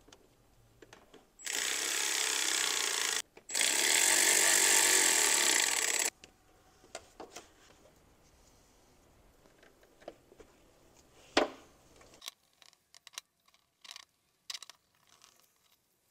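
Two long bursts of loud, even hissing, the first about two seconds long and the second about two and a half, cutting on and off abruptly. Scattered light clicks and rattles of parts being handled follow, with one sharper click near the middle.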